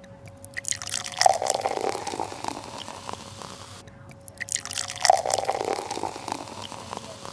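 A dubbed sound-effect loop of quick dripping, water-like clicks over a faint steady tone, with a short rising blip in each cycle, repeating about every four seconds.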